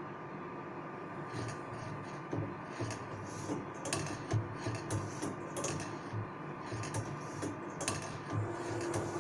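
Semi-automatic band saw tooth-setting machine running its cycle: a steady motor hum with repeated metallic clicks and knocks, about two a second, starting about a second and a half in, as the pusher feeds the blade tooth by tooth and the setting clamp presses.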